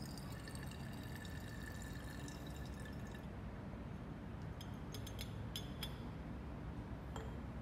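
Chloroform being poured in small amounts from a small glass vessel into a glass Erlenmeyer flask, with glass ringing over the first few seconds and a quick run of glass clinks about five seconds in, then one more near the end.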